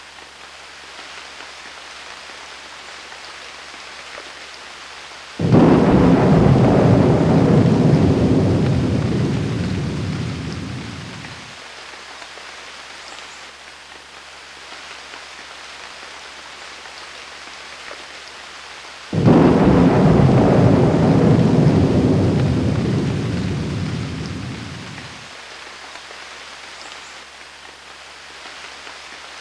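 Steady rain with two claps of thunder, each breaking suddenly and rumbling away over about six seconds, the second about fourteen seconds after the first.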